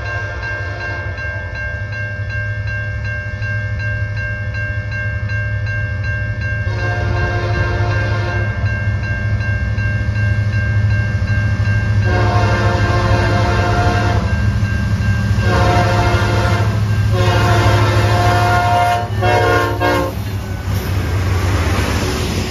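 Diesel freight train approaching a grade crossing: the lead locomotive's air horn sounds the crossing signal as a series of blasts, long ones with shorter ones between, over the locomotives' rumble as it grows louder. The crossing signal's bell rings steadily throughout, and the locomotives pass close by near the end.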